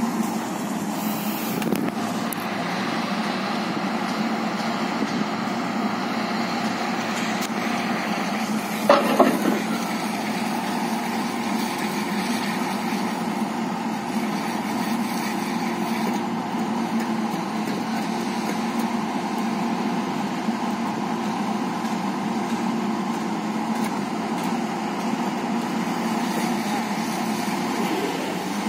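Excavator-mounted vibratory pile hammer and the excavator's diesel engine running steadily, driving a steel pipe pile into sand. There is a short louder metallic clank about nine seconds in.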